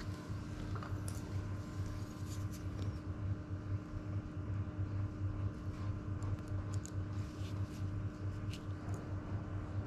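A steady low hum with a fixed tone, with faint scattered small clicks and ticks from fishing hooks and nylon line being handled while snells are tied.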